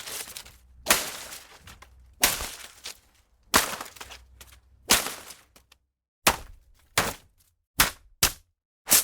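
Foliage being struck and slashed: nine sharp whipping hits, each followed by a brief rustle of leaves. They come about every second and a half at first, then shorter and quicker together in the second half.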